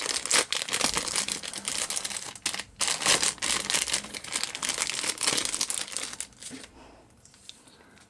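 Thin clear plastic bag crinkling and rustling as it is pulled open and handled by hand, with a couple of brief pauses; the crinkling dies away about six and a half seconds in.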